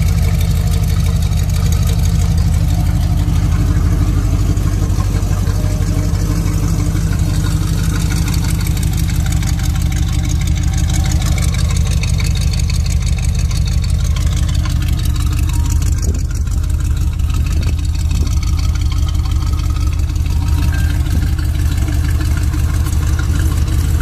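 1963 Chevrolet pickup's engine idling steadily, with an even, unchanging low rumble.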